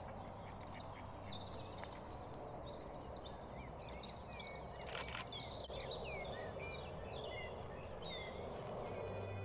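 Small birds singing and calling, many short chirps and sliding notes, over a steady low outdoor background rumble. A short double click comes about halfway through.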